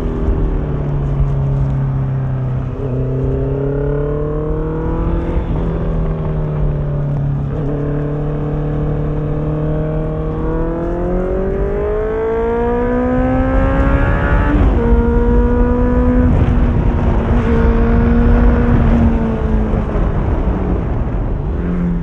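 Honda CBR650F inline-four with an Akrapovic exhaust under way, accelerating through the gears. The engine note climbs and drops sharply at each of three upshifts, the longest pull coming before the last shift. It then holds a steady pitch before falling away as the bike slows near the end.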